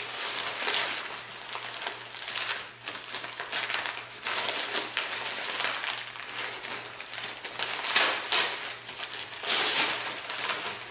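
Plastic packaging crinkling and rustling in irregular bursts as a mail package is unpacked by hand, loudest near the end.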